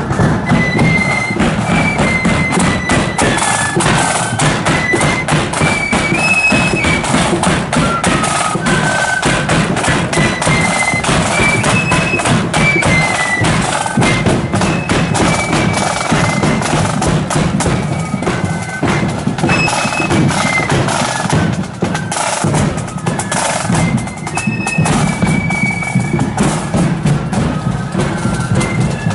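Marching band in a street parade playing a high, stepping tune over steady snare and bass drum beats.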